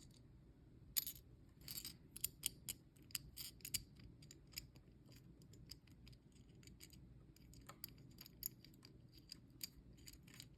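Faint, irregular small metal clicks and ticks of a lock nut and lock washer being handled and threaded by hand onto a 1/4-inch input jack, thickest in the first few seconds.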